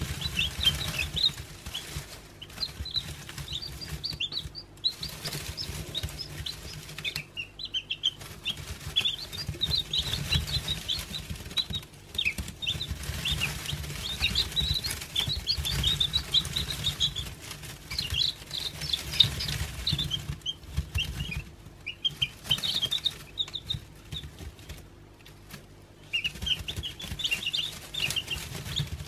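Newly hatched chicken chicks peeping: many short, high peeps in quick overlapping flurries with brief lulls, over a low steady rumble.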